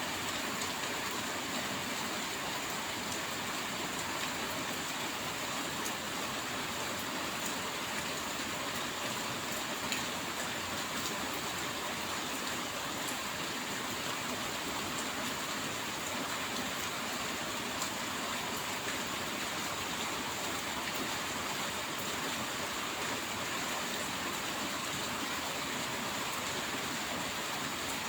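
Steady rain falling, an even hiss with scattered drop ticks, at an unchanging level throughout.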